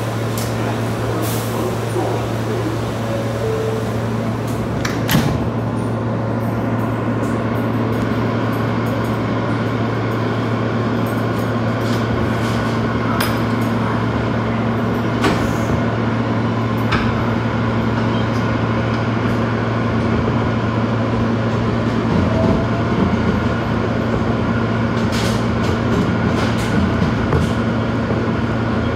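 Steady electrical hum and equipment noise of a standing New York City subway car with its doors open, broken by scattered sharp clicks and knocks.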